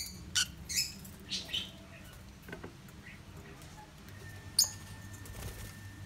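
Rosy-faced lovebirds giving short, sharp, high chirps: several in the first two seconds, then one more near the end. A faint low hum comes in about four seconds in.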